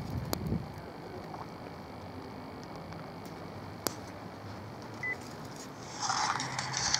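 Button clicks on a handheld Sony digital voice recorder being set to play back an EVP recording, over a low hiss, with one short high beep about five seconds in. Near the end a louder rustling hiss sets in.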